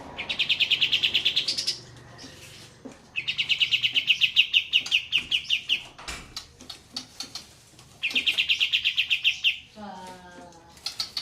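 Olive-winged bulbul (kapas tembak) singing its rolling trill: three long bursts of rapid, evenly repeated high notes, with short chips between them. Shortly before the end comes a lower series of notes that falls in pitch.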